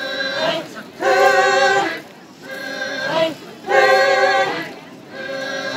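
A group of women singing a chant in unison, in held phrases about a second long, with a louder phrase alternating with a softer one.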